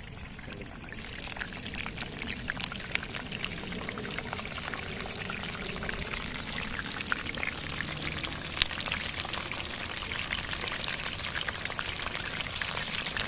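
Marinated quail pieces deep-frying in hot oil in a kadai: a steady sizzle full of small crackles and pops, getting gradually louder.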